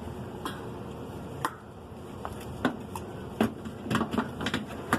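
Scattered light clicks and knocks of hands handling and fitting plastic and metal washer parts, more frequent in the second half.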